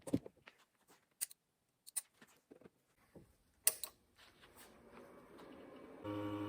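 Light clicks and knocks of hands handling the loosely mounted cooling fan and metal parts inside an opened AV receiver, a handful of separate taps. About six seconds in, a steady hum with a stack of even tones starts.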